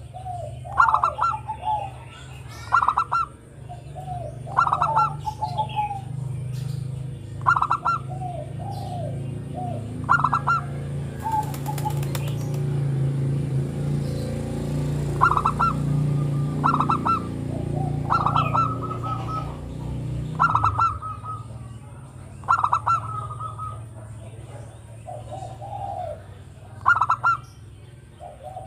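Zebra dove (perkutut) singing its repeated cooing song, one short phrase about every two seconds, over a steady low hum.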